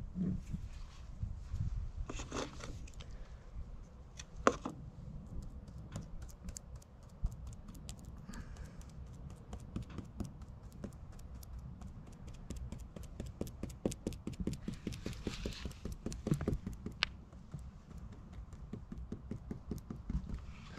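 Rapid light tapping, about five taps a second, with a few louder knocks in the first few seconds.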